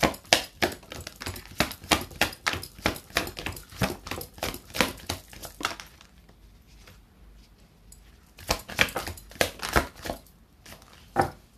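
A tarot deck being shuffled by hand: a quick run of card flicks and snaps for about six seconds, a short pause, then another burst of shuffling and one last snap near the end.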